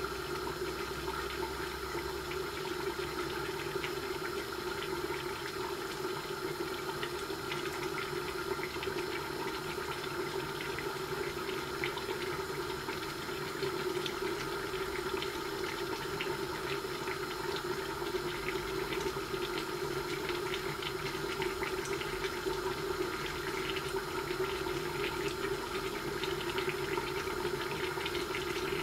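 Duck karahi cooking covered in a karahi on a gas burner, an upturned pan serving as the lid: a steady rushing hiss with a fine crackling sizzle over it.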